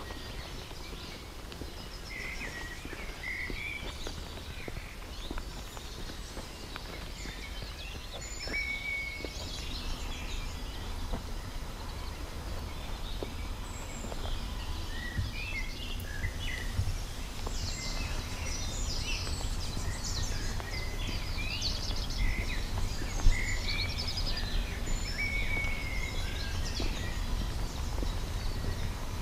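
Several songbirds chirping and calling in short whistles and trills over a steady low rumble. A single brief sharp click toward the end.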